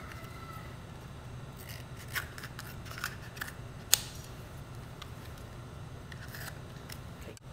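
Duct-taped tin sheet being worked by hand and trimmed: a few scattered sharp clicks and snips, the loudest about four seconds in, over a faint low steady hum.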